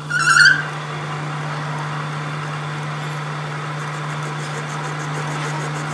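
Metal lathe switched on and running up: a brief high-pitched squeal at start-up, then the motor and spinning four-jaw chuck run with a steady hum.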